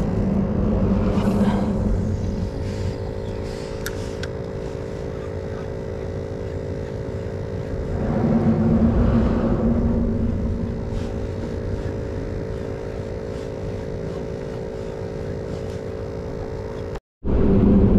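Traffic crossing the bridge overhead: a steady rumble and hum, swelling as vehicles pass about a second in and again around eight seconds in.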